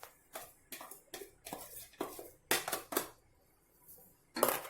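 A spoon scraping and knocking against a dish in a quick run of short strokes, about three a second, as ground coconut masala is scraped out into the cooking pan. The strokes stop about three seconds in.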